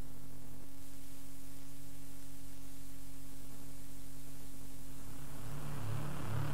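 Quiet break in an early-terror hardcore DJ mix: steady low drone tones over a hiss, with a low pulsing bass pattern coming in about five seconds in.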